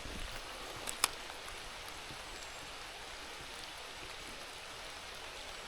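Light rain falling, a steady hiss, with one sharp tick about a second in.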